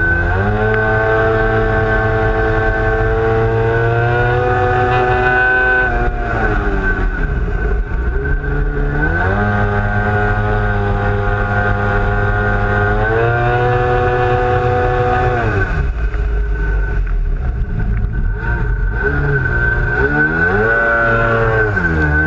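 Big-bore 920cc two-stroke Sea-Doo XP engine with a tuned expansion pipe, revving up and down as the throttle is worked. It climbs and holds high revs twice, drops back to low revs, then gives a short blip near the end before climbing again. A steady high whine runs underneath throughout.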